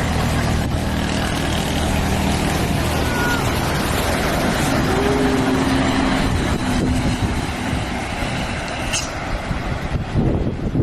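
Heavy diesel buses and trucks passing close as they climb a steep road: loud, steady engine drone and road noise, with a short tone rising and falling about five seconds in.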